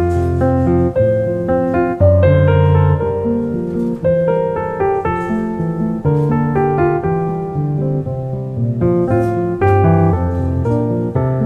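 Piano music: a melody of single notes over held low notes that change every second or two.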